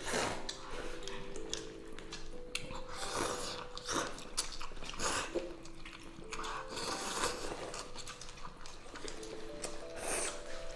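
Instant noodles slurped and eaten from paper cups: a series of short wet slurps every second or two, over light background music.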